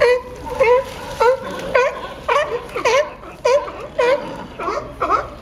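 California sea lions barking: a steady run of short, honking barks, about two a second, with more than one animal calling and some barks overlapping.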